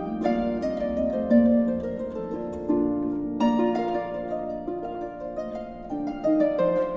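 Background music: a light melody of plucked notes.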